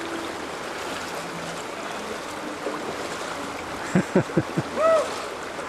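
Steady rushing of a shallow mountain river running over rocks. About four seconds in, a person gives four quick gasping breaths, then a short rising-and-falling cry, both louder than the water.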